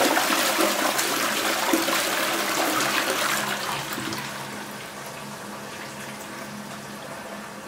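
Toilet flushing: a loud rush of water that fades about four seconds in and settles into a quieter, steady hiss of water as the tank refills.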